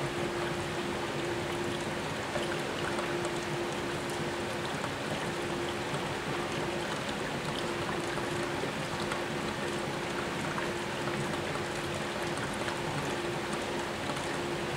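354-plate HHO (oxyhydrogen) electrolysis generator running under load, its cells fizzing and bubbling steadily as gas rushes out, with a steady hum underneath.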